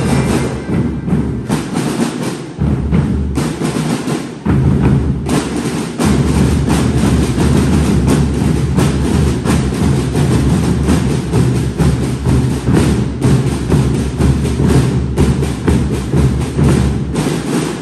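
Marching drum corps playing a loud, continuous cadence on snare drums and bass drums.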